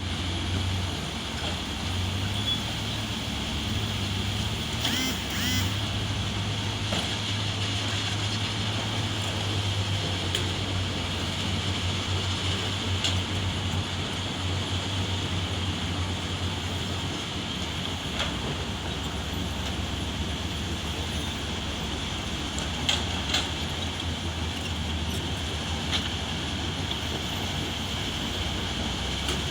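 Heavy diesel earthmoving machinery running steadily, a low engine drone with a few sharp metallic knocks scattered through.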